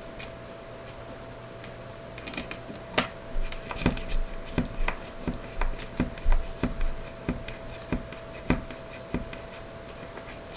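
Hard plastic clicks and knocks from a Lego pneumatic mechanism being worked, irregular at roughly two a second, starting about two seconds in and stopping shortly before the end.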